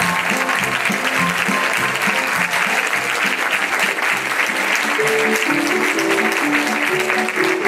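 Many hands clapping in applause over instrumental music with a steady run of notes.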